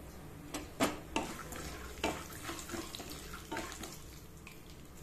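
Mustard seeds, chana dal and peanuts frying in hot oil in a non-stick kadai: a steady faint sizzle with scattered sharp pops and clicks. A spatula stirs through them near the end.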